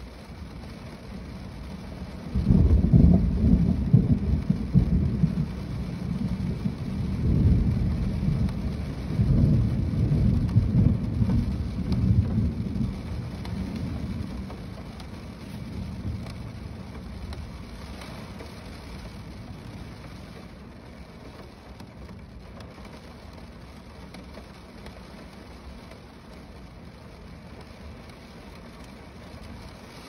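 Rain falling on a car's roof as a steady hiss, with a long low rumble of thunder that starts a couple of seconds in, rolls for about ten seconds, and fades away.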